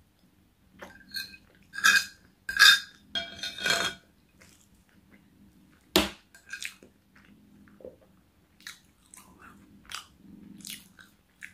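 Close-up mouth sounds of a person chewing a mouthful of roast dinner, with loud wet smacks and clicks in the first few seconds that then grow softer. A single sharp clink of a fork against a plate comes about six seconds in.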